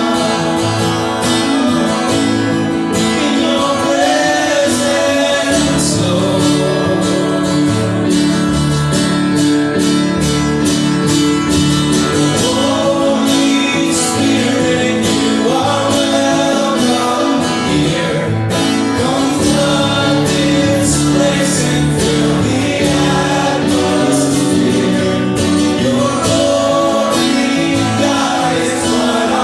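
Church worship band playing with group singing: a steady accompaniment with guitar and a regular beat under the voices.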